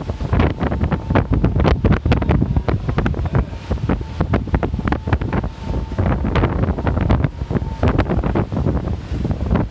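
Hurricane wind buffeting the phone's microphone in constant irregular gusts, with the wash of storm surf and flood water beneath.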